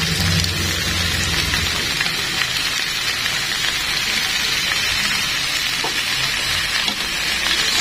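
Chicken and fish sizzling steadily in a hot ridged grill pan.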